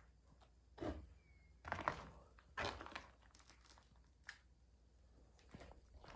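Crunching and scraping of rocks and dirt being worked by hand, with three louder scrapes in the first three seconds, then a few faint knocks.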